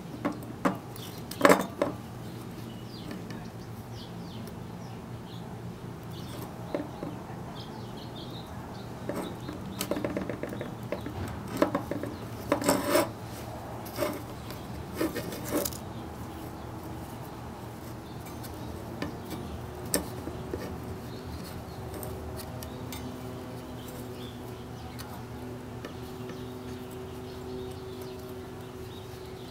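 Small metal hand tools and parts clinking, knocking and scraping on a workbench in scattered bursts, busiest in the first half, over a steady low hum.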